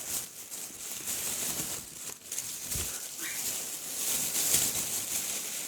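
Rustling and handling noises as toys are dug out of a shopping bag, with a soft thump about three seconds in.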